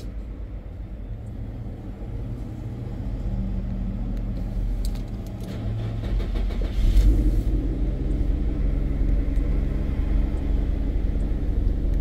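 Steady low hum and rumble of a motor vehicle engine running, growing louder a few seconds in and again about halfway through.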